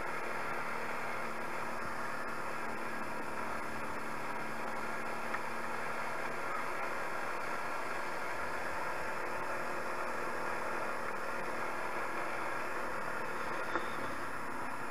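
Steady drone and hiss of a 250 cc Tao quad ATV's engine running at an even pace while riding, with two faint clicks.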